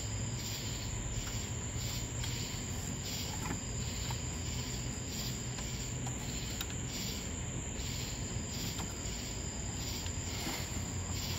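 Night insects trilling in a steady, high continuous drone, with a few faint clicks as a spark plug wire is handled and routed through its plastic holder.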